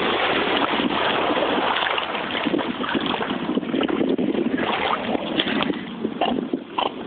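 Water splashing and churning as a fox-red Labrador retriever charges into the water and swims out. The loudest part is the first two seconds, then a steady rush of water and wind noise.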